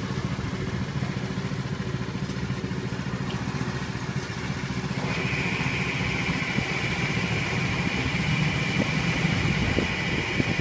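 A small engine running steadily at idle, with a fast, even low hum; a steady high tone joins about five seconds in.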